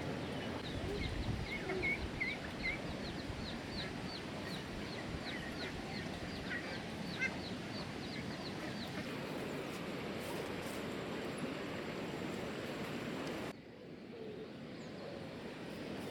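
A small bird chirping repeatedly, with short, high, falling chirps about two or three a second, over a steady hiss; the chirps stop partway through, and the hiss drops abruptly near the end.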